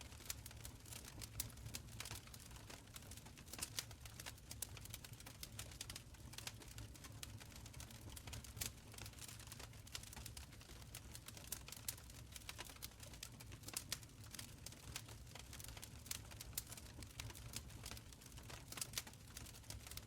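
Wood fire crackling in a stone fireplace: irregular sharp pops and snaps over a steady low rumble of the flames.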